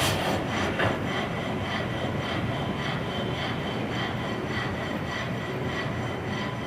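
Water-powered sawmill running steadily, with a regular rhythmic beat about twice a second over a continuous rumble.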